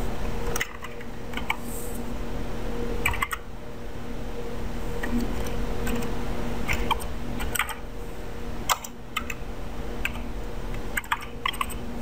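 Typing on a computer keyboard: irregular runs of key clicks with short pauses between them, over a steady low hum.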